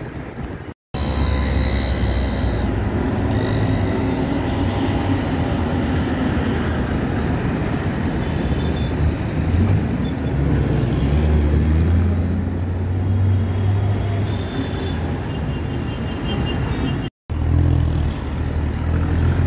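Red city buses running through a busy junction, their deep engine drone swelling loudest as one passes close partway through, over mixed traffic noise. The sound drops out briefly twice, near the start and near the end.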